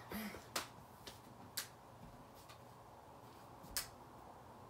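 Quiet room with scattered sharp clicks or taps at irregular intervals: three clear ones and a couple of fainter ones.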